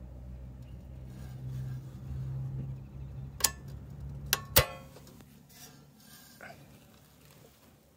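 The lever of a campsite power panel's 30-amp circuit breaker being snapped over by hand: a sharp click, then two more close together about a second later, the last the loudest.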